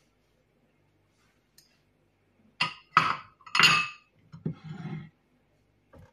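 Kitchenware clinking and clattering: three sharp knocks, some with a short ring, from about two and a half to four seconds in, then a softer rattle.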